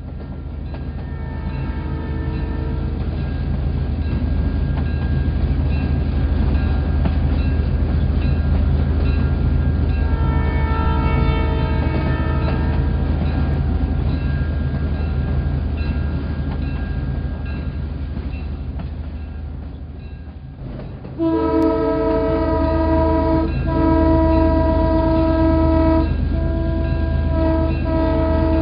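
Train locomotive sound: a steady low engine rumble that grows louder over the first few seconds, with a train horn sounding. Two fainter horn calls come early and in the middle, then a louder series of long horn blasts with short breaks between them starts about three-quarters of the way in.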